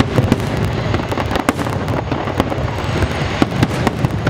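Aerial firework shells bursting in rapid, irregular succession: several sharp bangs a second over a continuous low rumble.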